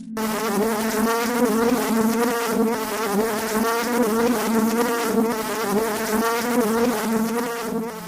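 Flying insect buzzing steadily, its pitch wavering slightly as it moves.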